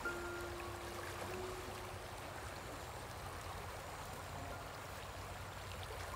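Shallow rocky stream flowing steadily: a continuous wash of running water.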